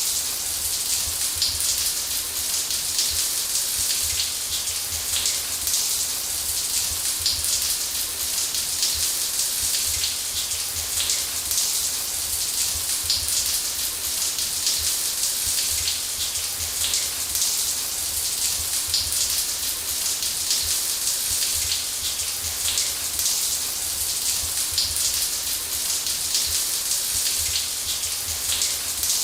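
Shower water spraying steadily: a dense, even hiss of falling droplets with a low rumble underneath.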